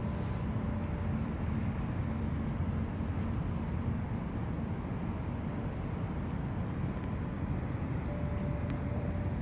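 Steady low rumble of outdoor background noise with a few faint steady hums, unchanging throughout.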